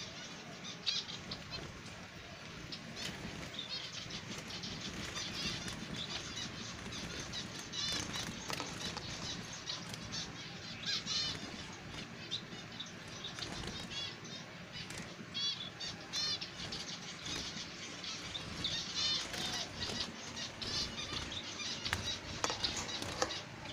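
Zebra finches fluttering about a wire cage, wings flapping again and again, with many short, high calls scattered throughout.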